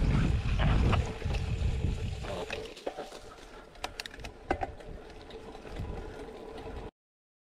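Cyclocross bike riding over a dirt trail: wind buffets the microphone with a heavy low rumble for the first two seconds, then quieter tyre noise with a few sharp clicks and rattles over bumps. The sound cuts off suddenly near the end.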